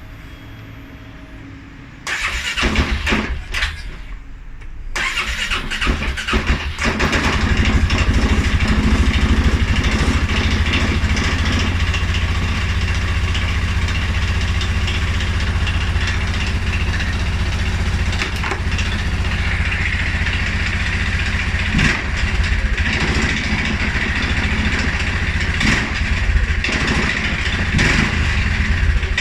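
2011 Polaris Sportsman 550 XP's fuel-injected single-cylinder engine starting about two seconds in, stumbling unevenly for a few seconds, then settling into a steady idle. This is the startup stumble the owner is chasing, although the dealer found the EFI sensors in spec and the owner found valve clearances, timing, plug and 43 psi fuel pressure all good.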